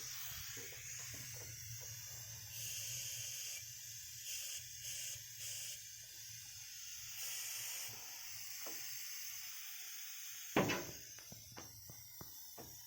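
Steady hiss of smoke-test air pushed into a V8 engine's intake to find vacuum leaks, swelling in several short spurts. A sharp knock comes about ten and a half seconds in, followed by a few light clicks.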